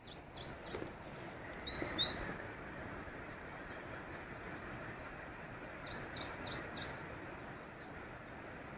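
Small birds chirping over a steady faint outdoor hiss: a couple of short high chirps about two seconds in, then a quick run of high, falling chirps about six seconds in.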